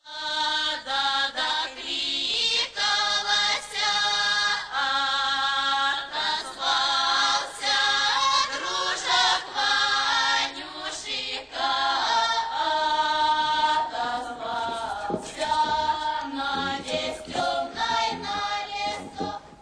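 Choral singing in slow, sustained notes as opening music. It fades away near the end.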